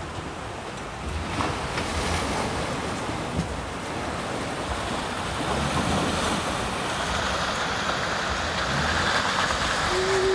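Rushing creek water and a Jeep's engine running as it drives through a shallow stream crossing, with wind on the microphone. The wash of water grows a little louder and brighter toward the end.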